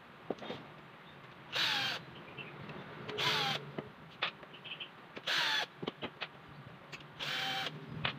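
Cordless drill run in four short bursts to back screws out of an electric fan's motor housing, each burst ending in a falling whine as the motor spins down, with small clicks of handling in between.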